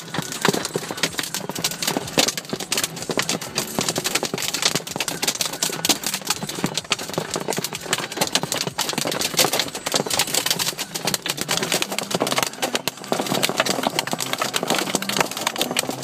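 Hailstones hitting hard surfaces in a dense, continuous clatter of many sharp impacts.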